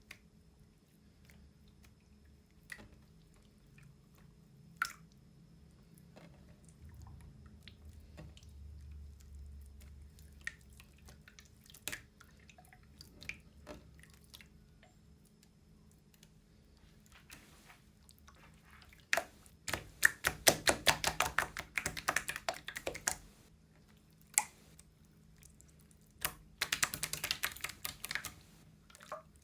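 Putty slime being squeezed and kneaded by hand: scattered wet clicks and pops at first, then two runs of rapid crackling pops as air pockets in the slime burst, the second near the end.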